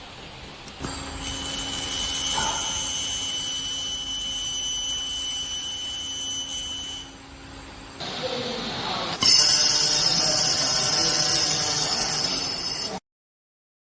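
CNC fiber laser welding machine running: a steady high-pitched whine over a low hum for about six seconds, then after a short drop a louder hiss for about four seconds that cuts off abruptly.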